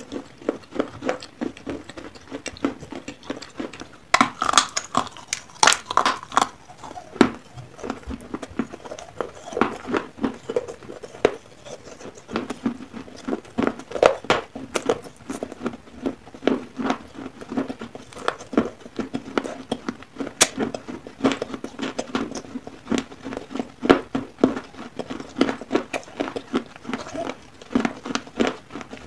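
Close-miked chewing and crunching of dry clay rolls: many short crisp crunches and clicks in quick irregular succession, with wet mouth sounds between bites.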